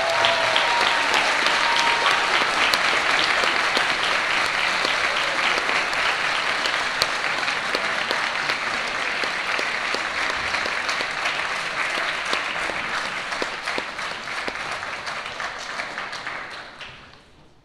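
Audience applauding, a long steady stretch of clapping that tapers off and stops near the end.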